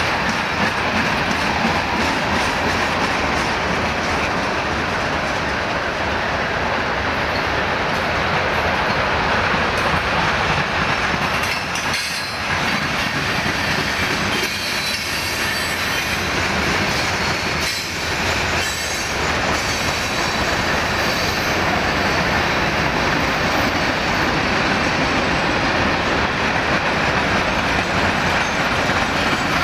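Freight train of tank cars and hopper cars rolling past, its steel wheels running on the rails in a loud, steady rumble with two brief dips, about twelve and eighteen seconds in.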